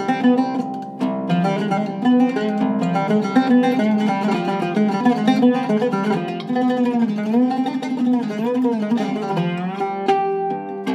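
Seven-course Iraqi-style oud with a cedar top and mahogany back, played solo: a continuous run of plucked melodic notes, with gliding, bending notes on its fretless neck in the middle.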